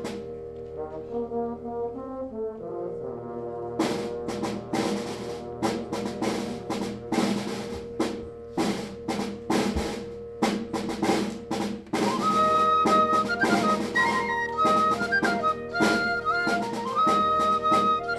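Concert band playing: a soft passage with a falling melodic line gives way, about four seconds in, to the full band with held brass chords over steady drum strokes. About two-thirds of the way through it grows louder, with a high melody over the chords.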